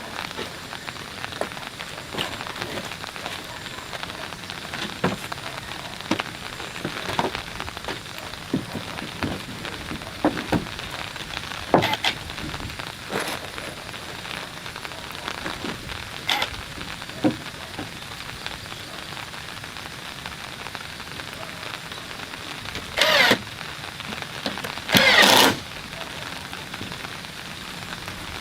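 Rain falling, a steady patter with scattered louder drops. Two short, louder sounds break in near the end, about two seconds apart.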